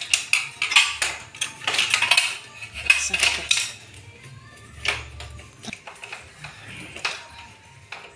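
Metal clinking and rattling as pliers and a small tool work at a joint between the metal tubes of a clothes-drying rack under repair. The clicks come thick and fast for the first half, then thin out to occasional taps.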